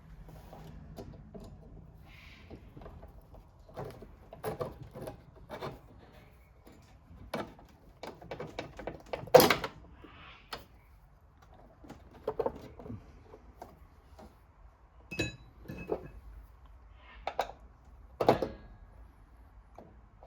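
Scattered metal clicks, taps and clunks as a new height-adjustment return spring is stretched and hooked into place on a Honda HRU216 lawn mower's height-adjustment mechanism, with one loud knock about halfway through.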